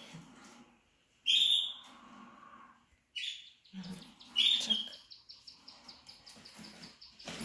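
King quail (Chinese painted quail) calling: four short, loud, high-pitched calls about a second apart. From about five seconds in comes a fast, even ticking of about seven a second. A sharp knock sounds at the very end.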